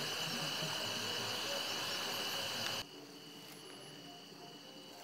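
Crickets chirping steadily in high, unbroken tones, over the even hiss of a portable butane gas stove burner. About three seconds in, the hiss cuts off and only the quieter crickets remain.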